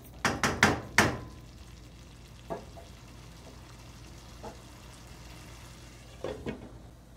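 A wooden spoon knocks sharply against a stainless steel sauté pan four times in the first second, over the faint sizzle of masala simmering with a little added water. Near the end a glass lid is set on the pan with two light clinks.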